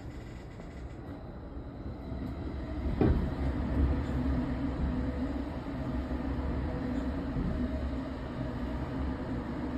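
Electric commuter train heard from inside the car as it sets off again after an emergency stop. There is a single clunk about three seconds in, then the low rumble of the car rolling with a steady hum, louder than at the start.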